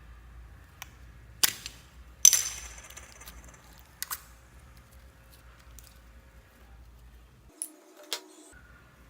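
A handful of sharp clicks and taps of hard objects. The loudest comes about two seconds in and is a bright clink that rings briefly.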